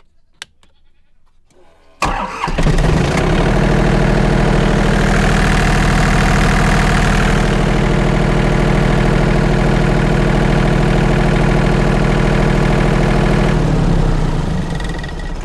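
Kohler marine diesel generator switched on with a click, catching about two seconds in and then running steadily. Near the end it winds down and stops, the controller shutting it off on an under-voltage fault (code UU), not the sound wanted from a freshly started generator.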